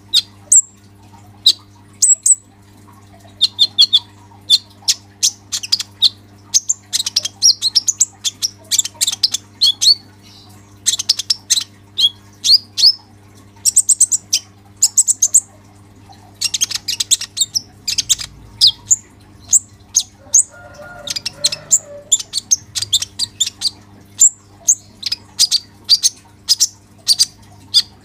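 A caged male kolibri ninja (Van Hasselt's sunbird) in full song: rapid runs of high, thin chirps and trills, with a short lull about two-thirds through. A faint steady hum runs underneath.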